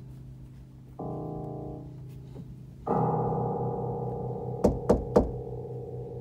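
Keyboard playing held piano chords: a new chord about a second in, and a louder one near the three-second mark. Three sharp knocks come in quick succession about two-thirds of the way through.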